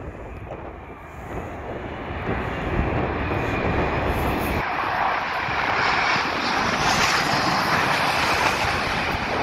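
Twin-engine jet airliner on final approach to land, its engine noise building for several seconds as it nears and passes low overhead.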